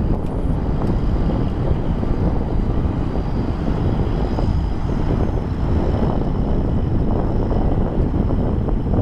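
Wind buffeting the microphone outdoors as a steady low rumble, with faint steady high-pitched tones underneath.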